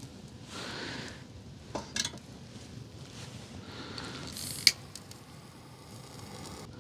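Faint sizzling of a dying campfire of damp wood, with a few sharp clicks around two seconds in and one loud click a little before five seconds in as the fire is handled.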